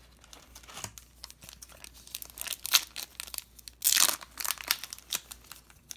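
A trading-card pack's foil wrapper being torn open and crinkled by hand, in short irregular rustles, loudest about four seconds in.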